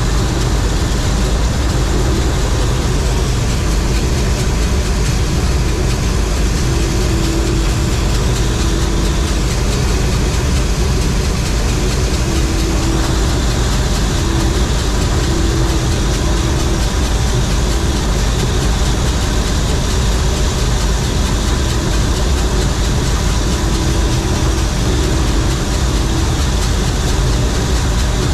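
John Deere 4400 combine running steadily under load while harvesting corn: a loud, even engine-and-machinery drone, deep and heavy, with a faint wavering hum over it.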